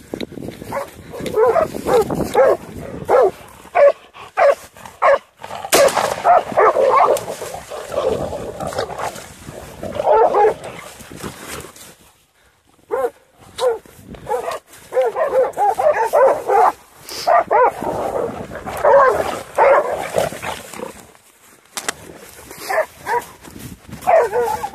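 Hunting dogs barking in rapid bursts of repeated barks and yips, baying at wild boar, with a short lull about halfway through.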